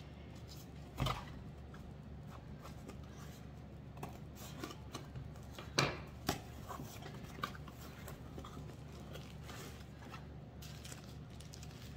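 Hands handling wrapped items and packing material on a table: scattered light taps and rustles, with a sharp knock about a second in and two more near the middle, over a steady low hum.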